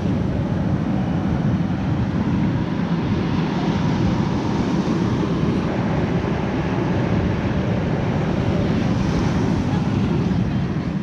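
Ocean surf washing onto the beach, with wind buffeting the microphone: a steady rushing noise.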